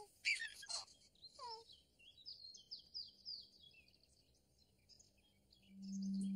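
Birdsong: scattered high chirps and quick falling whistled notes, with a fast run of short notes in the middle. Near the end a low held musical note swells in: the opening of the theme music.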